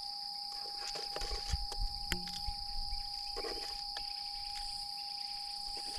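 Insects droning steadily in hot bush, with a steady pitched hum beneath them. There are a few light clicks and taps, mostly in the first couple of seconds.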